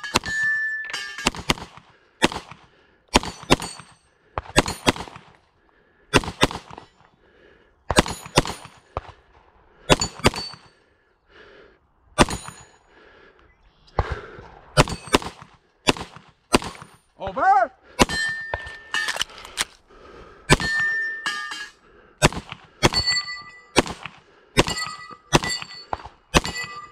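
Rapid pistol fire, single shots and quick pairs, with steel targets ringing after many of the shots.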